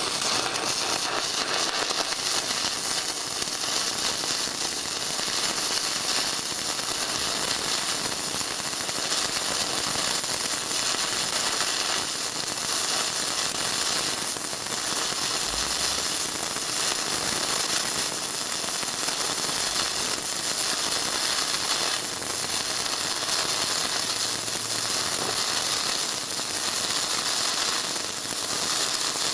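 Shielded metal arc (stick) welding: the electrode's arc crackling and sputtering steadily and without a break as a bead is run, with the welding current turned down low.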